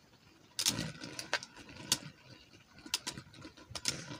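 Two Beyblade spinning tops spinning in a plastic bowl and clacking against each other, with several sharp, irregular clicks.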